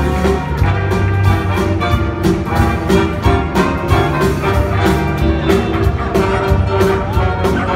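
Upbeat band music with brass and a steady beat, accompanying a circus dog act.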